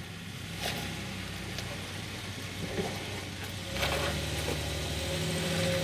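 Jeep Wrangler engine running at low crawling speed as it picks its way over rocks. It works harder and gets louder about four seconds in, and there are a couple of brief knocks in the first two seconds.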